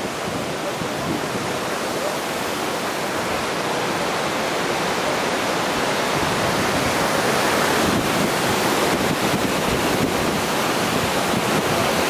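Steady rushing roar of a waterfall pouring into its rock pool, growing a little louder in the second half.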